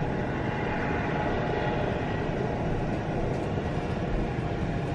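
A helicopter's engine and rotors running steadily: a constant drone with a faint high whine.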